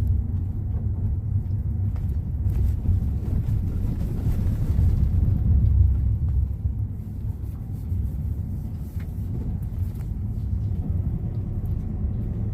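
Steady low rumble of a moving vehicle, with road noise.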